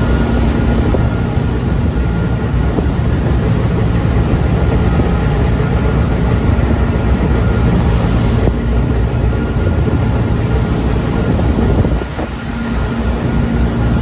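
Tractor-mounted straw bedding blower running steadily, its tractor engine and fan chopping a bale and blowing the straw out of the spout. The sound dips briefly about twelve seconds in, then comes back.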